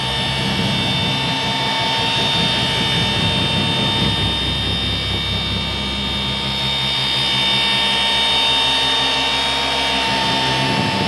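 Milwaukee cordless random-orbital polisher running at high speed with a steady whine. Its foam pad is working polishing cream into a painted panel, and the pitch and loudness shift a little as the pad is pressed and moved.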